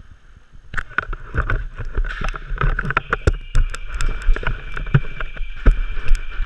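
Handling noise from a wide-angle action camera being moved about: many irregular knocks, taps and rubbing against its microphone, with a low rumble underneath.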